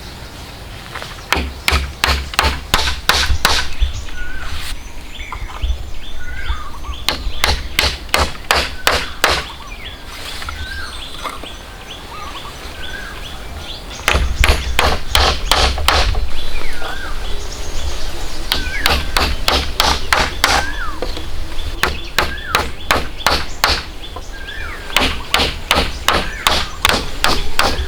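Repeated rapid blows of a hand tool, struck several times a second in bursts of a few seconds with short pauses between. Birds chirp in the pauses.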